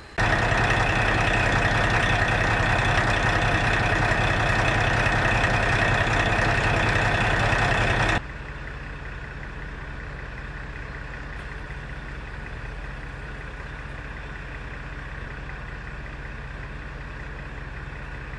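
KiHa 40 diesel railcar's original DMF15HSA horizontal six-cylinder diesel engine running steadily, loud for about eight seconds, then suddenly much quieter and steady again.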